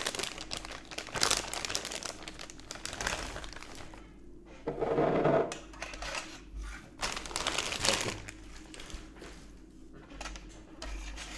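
Clear plastic sleeve of petri dishes crinkling in bursts as dishes are pulled out of it, with light knocks of the plastic dishes being set down on a table.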